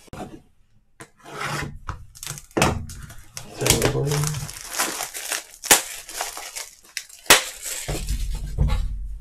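Plastic shrink wrap being torn and stripped off a sealed trading-card box, crinkling in bursts, with two sharp clicks about two-thirds of the way through.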